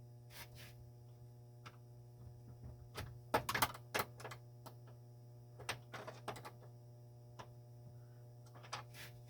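Groups of small, sharp metallic clicks as a wrench turns the nut and bolt of a stainless steel refrigerator door hinge brace, over a steady low hum. The clicks come about three seconds in, again around six seconds, and near the end.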